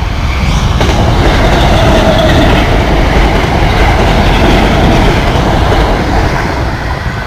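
A Class 317 electric multiple unit passing close by over a level crossing, the train noise swelling to its loudest in the middle and easing as it goes by.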